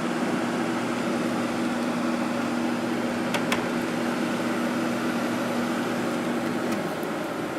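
Sharp 10,500 BTU window air conditioner running just after being switched on, its fan blowing with a steady hum underneath. The hum drops out about seven seconds in, and two quick clicks come midway.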